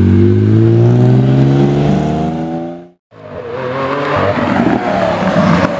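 A car's engine accelerating past, its pitch rising steadily, fades out about three seconds in. After a short gap a Lamborghini Aventador's V12 fades in, revving as the car pulls away.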